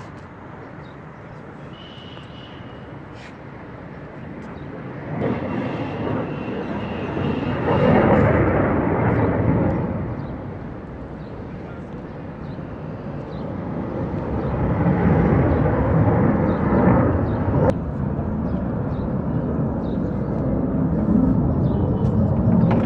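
F-16 fighter jet's single-engine jet noise in flight: a broad rushing sound that swells to a peak about eight seconds in, eases off, then builds again from about fourteen seconds and stays loud.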